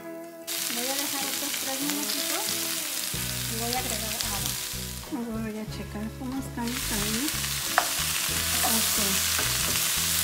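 Pork, potato, carrot and onion pieces sizzling in a stainless steel pan over a gas flame. A glass lid is lifted off and the food is stirred with a spatula, with a single sharp clink about eight seconds in.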